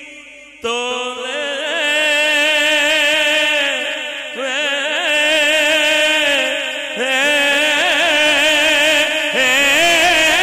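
A man's solo voice singing a manqabat in long, drawn-out melismatic phrases with a wavering vibrato and no clear words, amplified through a microphone. A note fades out at the start, and a new phrase comes in strongly about half a second in.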